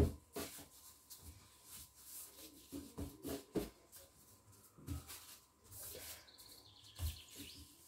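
Gloved hands rolling baguette dough on a floured stone countertop: irregular soft rubbing and rustling of the plastic gloves and dough against the stone, with a few light taps.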